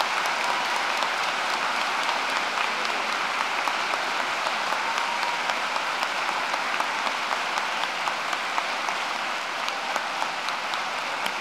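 Large crowd applauding in a standing ovation: a dense, sustained patter of many hands clapping that eases slightly near the end.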